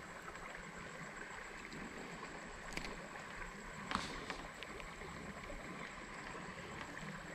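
Shallow creek water running over a gravel riffle, a steady faint rush, with a couple of small sharp ticks or splashes about three and four seconds in.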